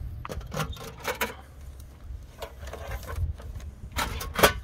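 Metal mailbox door being unlatched and swung open, a run of sharp clicks and clanks, with paper mail rustling as it is pulled out; the loudest clank comes near the end.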